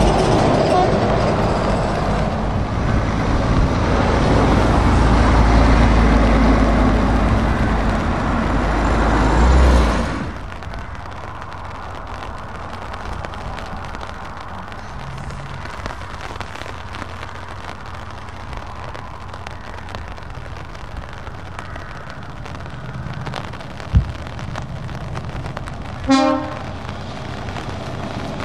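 Heavy trucks passing close on a wet road: diesel engine rumble and tyre hiss, loud for the first third, then dropping off suddenly to a quieter steady rumble of approaching trucks. A sharp click comes about two-thirds in, and a short horn toot near the end.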